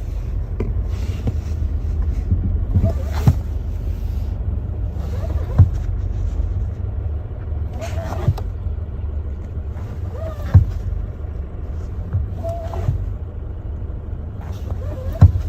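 Subaru BRZ's flat-four engine idling with a steady low rumble, broken by sharp clicks, some with a short squeak, every two to three seconds. It is the abnormal noise heard with the clutch disengaged, caused by a worn clutch release bearing.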